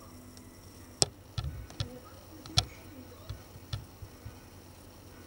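Irregular clicking of a computer mouse and keyboard as a document is edited: about a dozen short, sharp clicks at uneven intervals, the loudest about a second in and about two and a half seconds in.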